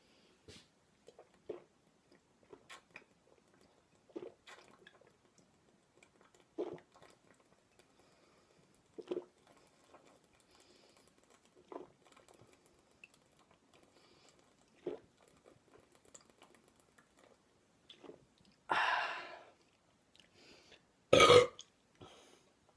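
A man drinking malt liquor straight from the bottle: quiet swallowing gulps every two to three seconds, then a loud breath out and a short, loud burp near the end.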